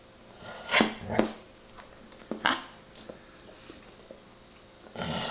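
Golden retriever vocalizing in two quick syllables that come out like 'ma-ma', a trained 'talking' trick, then a shorter sound a little over a second later and another starting near the end.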